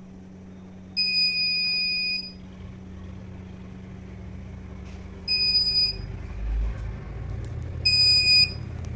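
Buzzer of a homemade automatic doorbell circuit beeping three times as it detects a person: a steady high tone of about a second, then two shorter ones several seconds apart. A low hum runs underneath.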